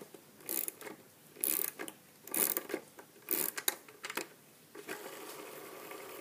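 Skate tool working the axle nut on a skateboard truck: four short metallic rasps about a second apart, then a steady whir near the end.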